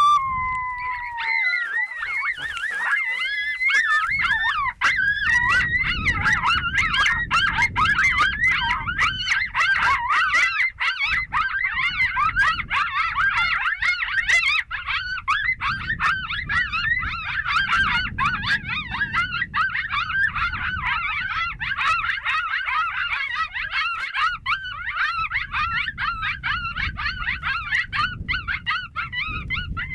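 A pack of coyotes howling and yipping in chorus, many high wavering voices overlapping without a break.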